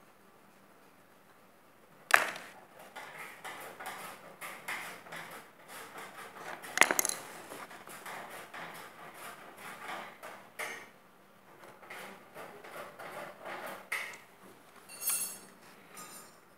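Hand-tool work on metal parts: a screwdriver and parts clicking, knocking and clattering, with two sharp knocks about two and seven seconds in and a brief metallic ring near the end.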